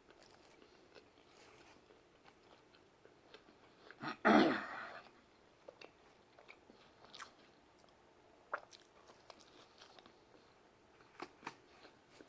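A person chewing and biting pizza with the mouth close to the microphone: wet mouth clicks and smacks. About four seconds in there is one louder noisy burst lasting under a second.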